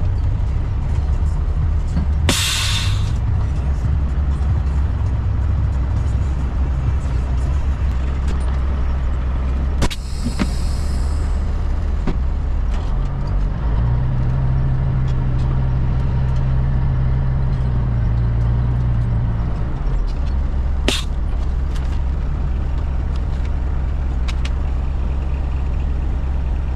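Semi truck's diesel engine running with a steady low drone, with a short air-brake hiss about two seconds in and another, longer hiss about ten seconds in, and a sharp click near the end.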